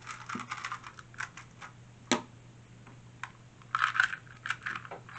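2x2 speed cube being turned by hand: quick, irregular runs of plastic clicks as the layers are twisted, with one sharper click about two seconds in.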